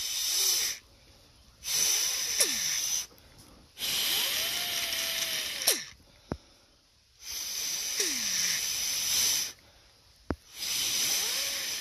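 Breath blown in five puffs through the small port of a Hayward Navigator pool vacuum's steering box. Each puff is a rush of air with a little whistling as the gears turn inside, a sign that the steering gears are turning freely and the box is good to go.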